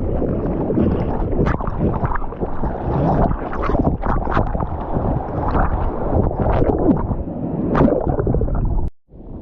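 Sea water sloshing and splashing around a GoPro in the surf, with wind buffeting its microphone and many short sharp splashes. The sound cuts off suddenly near the end, then comes back quieter.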